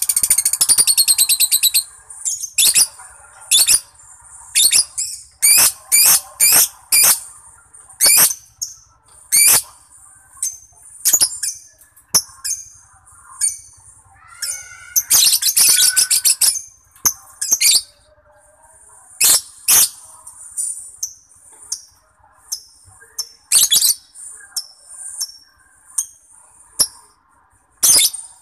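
Lovebird singing: sharp, high-pitched chirps repeated every half second to a second or so, broken by two long rapid trills, one at the start and one about fifteen seconds in.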